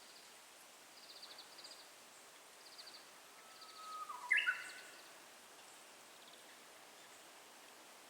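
Japanese bush warbler (uguisu) singing its hoo-hokekyo song once, about four seconds in: a long held whistle that drops into a quick, louder flourish. Short, high rattling notes come about once a second before it.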